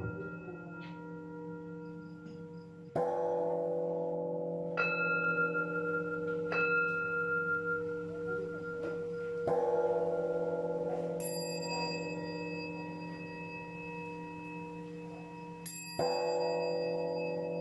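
Buddhist bowl bell struck three times, about six and a half seconds apart, each stroke ringing on with several steady tones as it slowly fades; these strokes pace the bows of a prostration session. Between them come lighter, higher strikes from a small hand bell.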